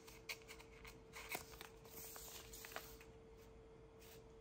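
Faint handling noise from wide paper-backed washi tape rolls being unrolled and held: soft rustling and a scattering of small clicks, with a faint steady hum underneath.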